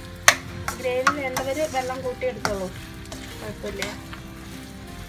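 Metal spatula scraping and knocking against a wok-style pan while thick, dry chana dal fry is stirred over the heat, with a light sizzle underneath. The sharpest knock comes just after the start, and a run of scrapes and clinks follows over the next few seconds.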